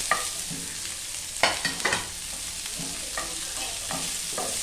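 Sliced onions and garlic sizzling in a little oil in a frying pan, with a wooden spatula scraping and knocking against the pan as they are stirred. The hiss of the frying is steady, and the spatula strokes come irregularly, the loudest few together about a second and a half in.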